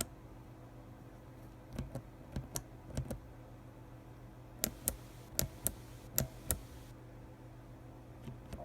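Kailh mechanical keyboard switches being pressed by hand, giving sharp clicks: a few softer ones, then a run of louder, quick clicks a couple of seconds later.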